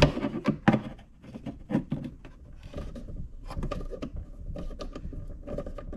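Handling noise from mounting a small water pump inside a plastic RC boat hull: scattered clicks and taps with rubbing as a screw is turned in by hand.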